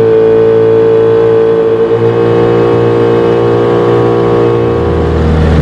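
Jon boat's motor running steadily under way, a constant droning pitch; a deeper hum joins near the end.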